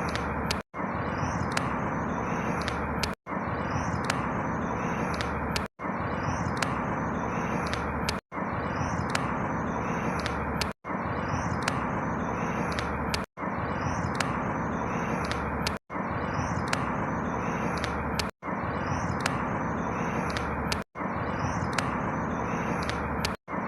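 Outdoor ambience: a steady rushing noise with faint high chirps, likely birds. A clip of about two and a half seconds repeats over and over, with a brief drop to silence between each repeat.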